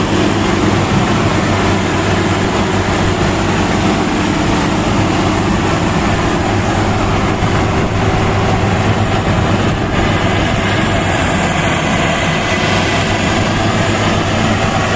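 Combine harvester running steadily, a continuous engine and machinery drone with a steady low hum.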